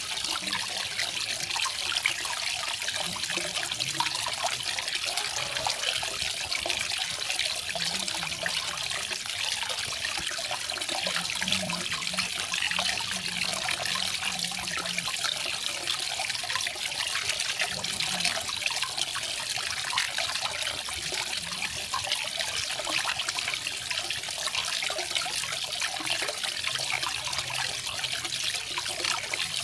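Garden waterfall: water falling and trickling in a steady, unbroken splash.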